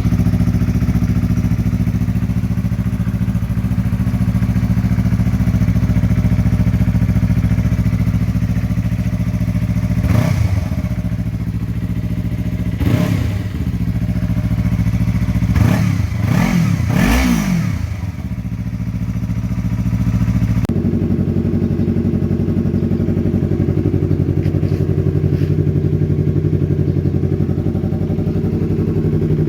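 Yamaha R3's parallel-twin engine idling through an aftermarket slip-on exhaust, with four quick throttle blips that rise and fall in pitch about a third and halfway through. The idle note changes character about two-thirds of the way in.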